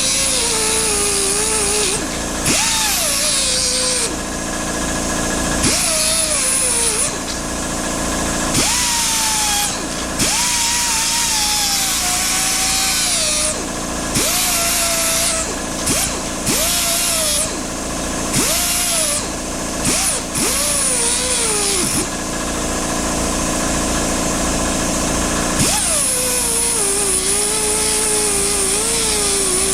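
Cordless drill-driver run in about a dozen short bursts. Each starts as a high motor whine that drops in pitch as the motor loads up.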